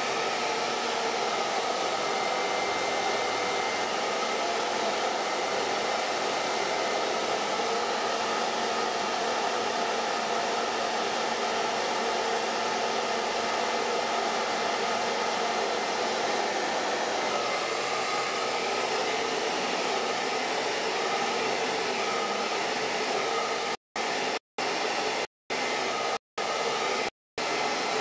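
A steady, noisy mechanical-sounding drone with faint steady tones in it. Near the end it is chopped by short, abrupt drops to silence, about one a second.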